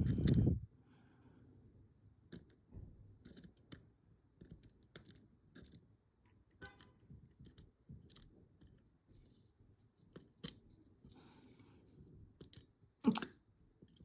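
Small metal parts of a padlock being handled and taken apart by hand: scattered light clicks and scrapes, with a louder knock right at the start and another near the end.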